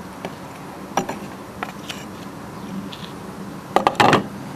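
Metal grill tongs clicking a few times while steaks are turned on a wooden cutting board, then a loud clatter about four seconds in as the tongs are put down on the board.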